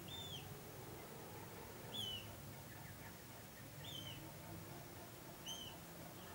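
Young common moorhens giving short high peeping calls, four in all, about one every two seconds, each note rising then falling in pitch, over a faint low hum.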